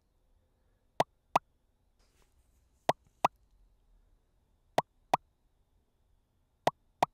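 Drumaxx software drum synthesizer's 'Droplet' drum playing solo in a looped pattern: four pairs of short synthetic hits, each a quick blip gliding upward in pitch. Velocity modulation of the middle frequency lowers the pitch of the first hit of each pair.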